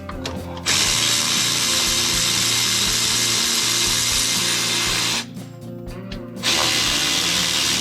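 A power tool runs steadily in two long bursts, a steady whirring hiss. It stops for just over a second in between and then starts again.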